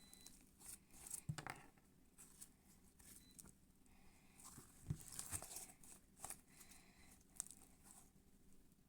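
Slime being handled and pulled, giving faint sticky clicks and small crackles at irregular moments, a few slightly louder pops scattered through.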